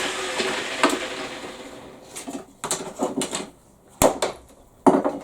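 A tool's running noise dies away over the first two seconds. Then come several separate clanks and knocks as hard metal pieces are handled and set down on a workbench.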